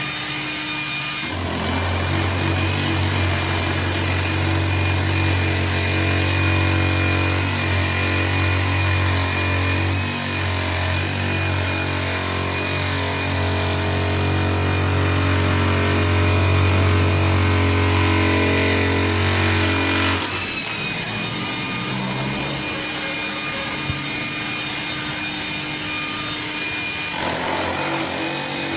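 Hilti TE 800-AVR electric demolition hammer running with its chisel in a concrete wall, a steady, loud, rapid hammering as it chips the concrete away. About two-thirds of the way through its low, even tone drops away for several seconds, then returns near the end.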